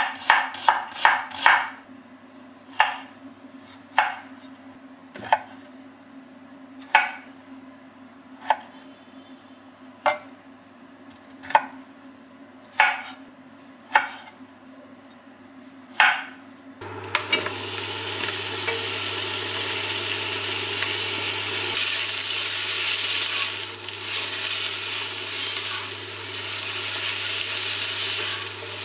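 A knife chopping on a cutting board: a quick run of about six cuts, then single cuts about every second and a half. After about seventeen seconds, food goes into a hot oiled pan and sizzles steadily over a low hum.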